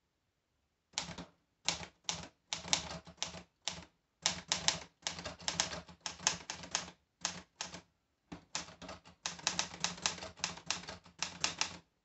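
Olivetti Lettera 33 portable manual typewriter being typed on: quick, uneven runs of key strikes as the typebars hit the platen, broken by short pauses, starting about a second in.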